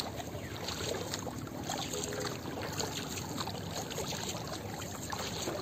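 Water splashing and trickling around a wooden paddle and lapping against the hull of a small wooden rowboat being paddled along, in many small irregular splashes.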